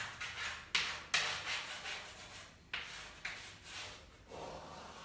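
Chalk scratching on a chalkboard in a series of quick short strokes, shading in a drawn shape, with a short pause partway through.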